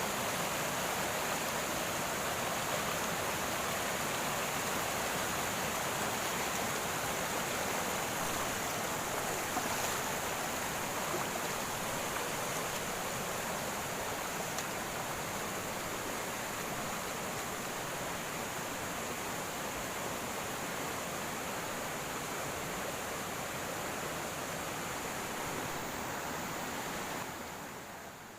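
Upper-river water flowing steadily, a constant rushing hiss that drops away sharply near the end.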